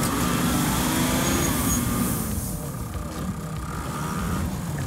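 Toyota Land Cruiser J100's engine running as the SUV crawls slowly over rough off-road ground.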